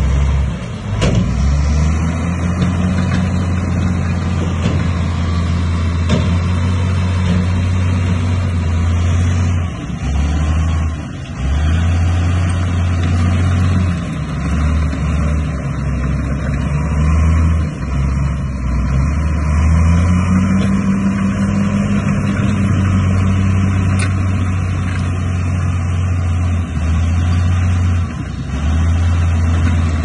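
Bulldozer's diesel engine running steadily under load, its low drone dipping briefly several times.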